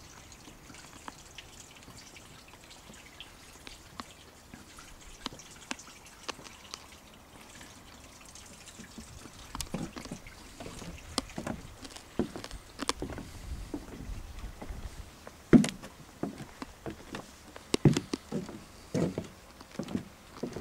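Footsteps on timber decking: irregular dull thuds and knocks that begin about ten seconds in, over a faint steady hiss, with the heaviest steps near the end.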